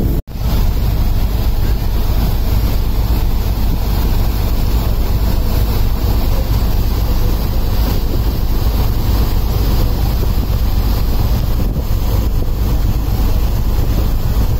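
Heavy wind buffeting the microphone on a moving boat at sea, over the steady rush of water in its wake.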